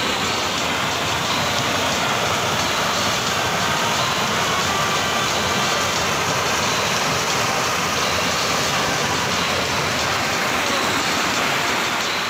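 Steady rush of a shallow stream pouring in white-water cascades over rock ledges.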